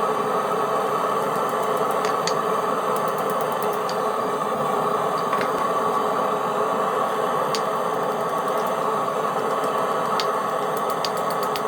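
Steady roar of a blacksmith's forge running, with a few faint light clicks over it.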